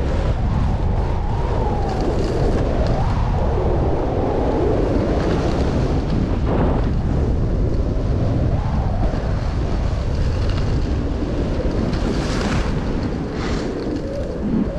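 Heavy wind noise buffeting the microphone, with a wavering hiss and two short, sharper hissing swishes near the end.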